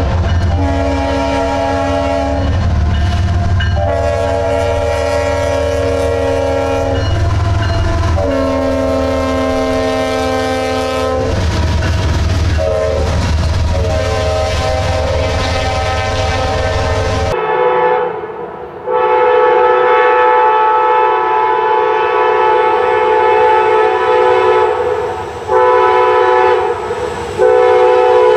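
CSX diesel freight locomotive sounding its horn in a long-long-short-long pattern over a low engine and wheel rumble, the usual grade-crossing signal. About 17 seconds in, this cuts off suddenly and an Amtrak Genesis passenger locomotive's horn takes over with long blasts, broken by short gaps.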